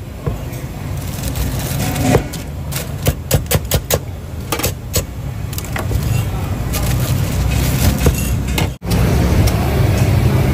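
Cleaver chopping food on a cutting board: a run of quick knocks, roughly three or four a second, from about two seconds in until about five seconds in, over a steady low background noise. Near the end the knocks stop and the low noise grows louder and steadier.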